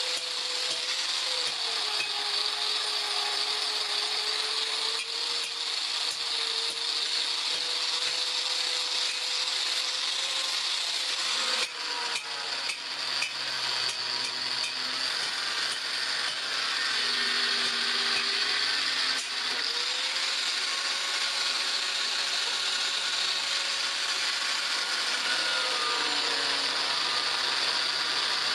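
Electric power tool running steadily on metal, with a hissing, grinding sound; its motor pitch sags and recovers a few times as it is loaded.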